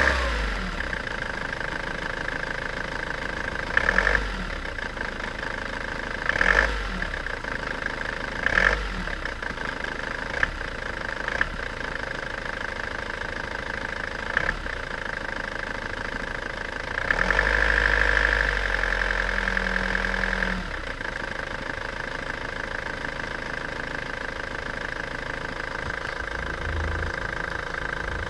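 An engine running steadily at idle, with a few short louder bursts in the first ten seconds and a louder stretch of about three seconds just past the middle.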